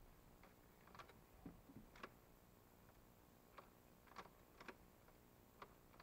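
Near silence with about eight faint, sharp clicks at irregular intervals.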